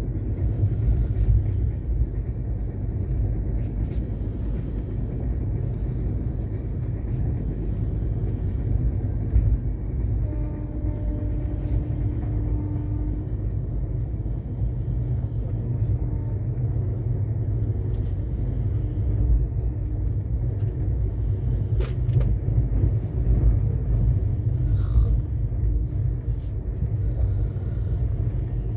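Steady low rumble of a passenger train running at speed, heard from inside the coach: wheels on rails and the motion of the carriage, with a single sharp click about two-thirds of the way through.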